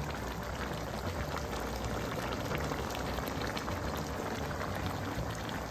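Chicken guisantes stew bubbling at a steady boil in the pot, many small bubbles popping, as its sauce reduces.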